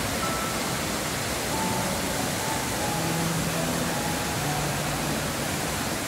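Steady rush of a waterfall pouring over boulders in a mountain stream, with soft background music faintly under it.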